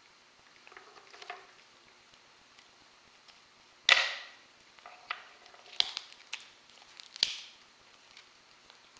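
Wooden beads of a homemade parrot foot toy knocking and clacking on a hard surface: a few sharp, irregular knocks, the loudest about four seconds in, with smaller clicks between.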